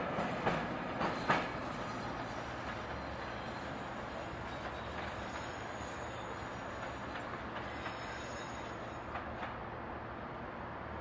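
Manchester–Bury Class 504 electric multiple unit running away over jointed track: a few wheel clicks over rail joints in the first second and a half as the sound falls off, then a steady low rumble.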